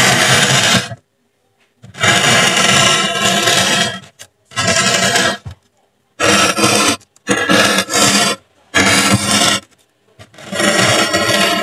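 Metal tip of a soldering-iron-style tool dragged across polystyrene foam, a rasping, squeaky rub in about seven strokes of a second or two each, with brief silent gaps between them.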